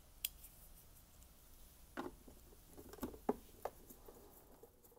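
A handful of faint clicks and taps from a screwdriver turning screws into the plastic ice maker panel of a fridge freezer door, bunched about two to four seconds in.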